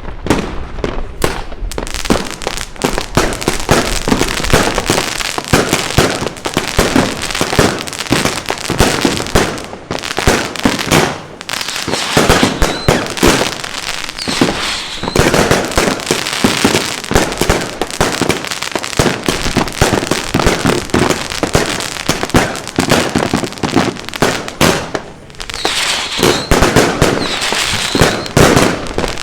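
Iskra Wampir 100-shot 21 mm firework cake firing: a rapid, continuous string of shots and bursts, with brief lulls about ten and twenty-five seconds in.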